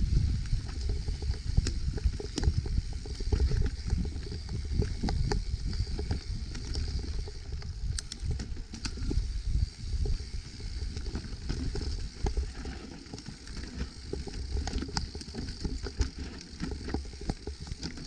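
Evil Insurgent full-suspension mountain bike running down a rough trail: steady tyre and wind rumble with many quick clicks and rattles from the bike and ground.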